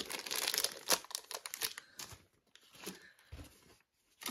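Clear plastic bag around a blood pressure monitor crinkling as it is handled: dense crackling for about the first two seconds, then a few sparser, softer rustles.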